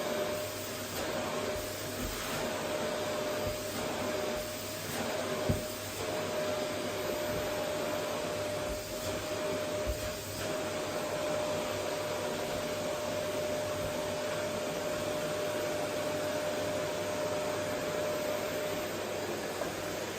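Vacuum cleaner running steadily: an even rushing noise with a steady whining tone, which fades near the end. A few light knocks come in the first half as it is worked over the floor.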